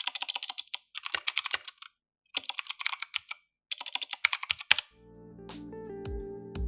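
Typing on a Koodo Cavalier mechanical keyboard with clicky Outemu Blue switches, in four quick bursts of keystrokes. Background guitar music fades in about five seconds in.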